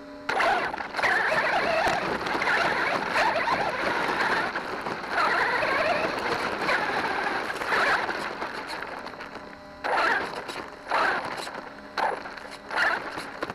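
Radio-controlled monster truck's drivetrain whirring and rattling as it drives over rough dirt, heard from a camera mounted on the truck. Near the end it comes in short surges about once a second.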